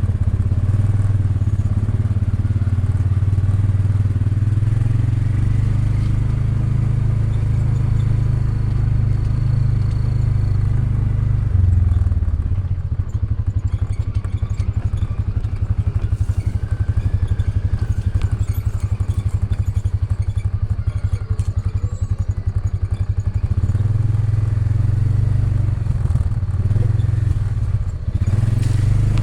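ATV engine running steadily; about twelve seconds in it drops to a slower, pulsing note, and near twenty-four seconds it picks up again to a steady run.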